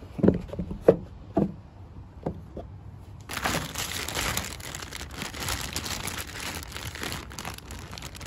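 A few light knocks, then from about three seconds in a steady run of crinkling and rustling, like plastic packaging being handled and torn open.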